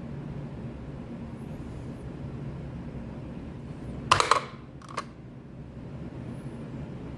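Steady low hum, with a short rattle of sharp clicks about four seconds in and one more click about a second later.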